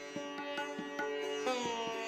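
Background instrumental music: a plucked string instrument playing a slow melody over a steady drone, with one note bending downward in pitch about one and a half seconds in.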